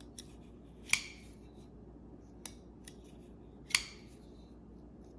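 Civivi Baby Banter 2 folding pocket knife being worked open and shut on its axis-style lock: two sharp metallic clicks with a short ring, about a second in and near four seconds, and a few lighter clicks between.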